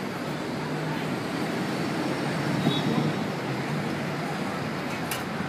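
City street traffic: cars and buses running past, a low rumble that swells about halfway through as a vehicle passes closer.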